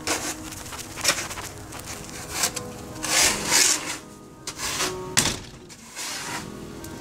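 Snow shovel scraping snow off concrete, several rasping scrapes mixed with sharp knocks of the blade on the pavement, about a second in and again about five seconds in.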